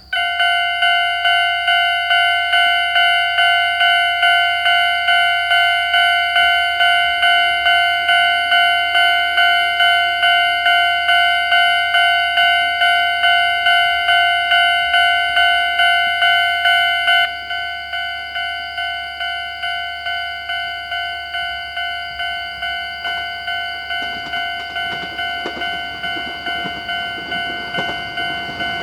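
Japanese railway level-crossing alarm starting up and ringing a steady electronic bell tone, struck a little under twice a second. About two-thirds of the way through, the alarm steps down to a lower volume. The noise of the approaching train builds over the last few seconds.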